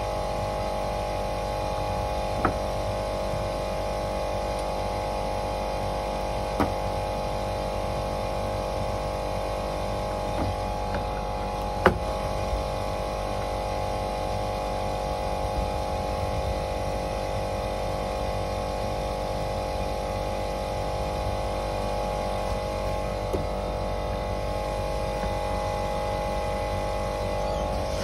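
An old R22 air conditioning system running with a steady hum, broken by a few sharp clicks, the loudest about twelve seconds in.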